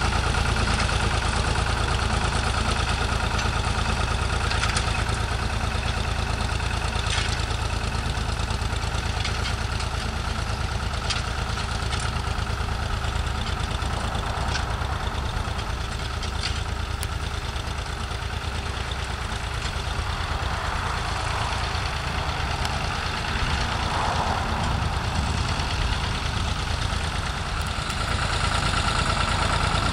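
Ford 4000 tractor engine running steadily under load while it pulls a spring-tine cultivator through the soil. It grows a little quieter around the middle as the tractor moves away, and louder again near the end as it comes close.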